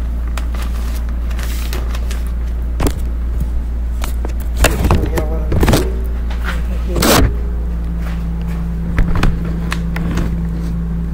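A steady low electrical-sounding hum, with a few scattered knocks and clatters of things being handled and moved. A second, higher steady hum comes in about two thirds of the way through.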